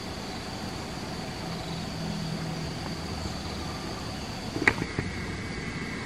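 Outdoor countryside ambience: a steady thin high insect drone with a faint low engine hum in the distance around the middle, and one short sharp click near the end, after which a second steady high insect tone sets in.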